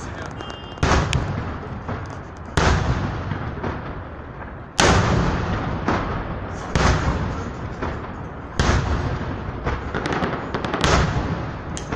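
Aerial firework shells bursting overhead: six deep booms about two seconds apart, each dying away over a second or more, with smaller sharp pops in between.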